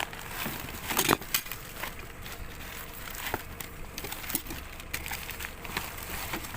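Rubbish being handled and shifted in a curbside junk pile: scattered knocks and clatter, the loudest knock about a second in.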